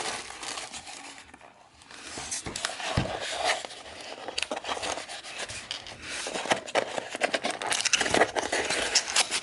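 Packaging rustling and crinkling with small metal parts clinking and scraping as a tool kit is handled and unpacked, in an irregular run of clicks and rustles.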